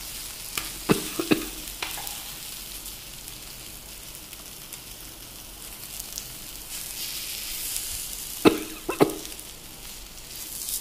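Red snapper fish shallow-frying in oil on a tawa, a steady sizzling hiss. A metal slotted spatula clicks against the pan a few times in the first two seconds and twice more loudly near the end as the fish are moved.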